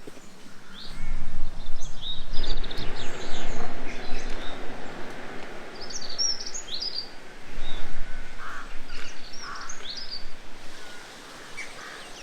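Small birds chirping and trilling in short, scattered phrases over a steady rushing noise.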